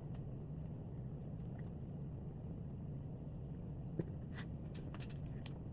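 Quiet room tone: a steady low hum with a few faint clicks, the clearest about four seconds in.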